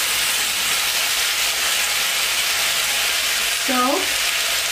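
Chicken breasts sizzling steadily in hot vegetable oil in a frying pan.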